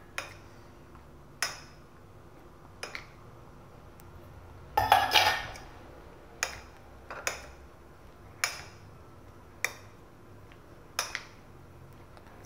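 Utensil knocking and scraping against a mixing bowl as cauliflower florets are turned in batter. About nine sharp clinks come roughly once every second or so, with a longer, louder clatter about five seconds in.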